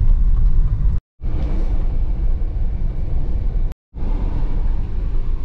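Motor vehicle driving on a dirt road, heard from inside the cab: a steady low engine and road rumble. The sound cuts out abruptly twice, for a split second each time.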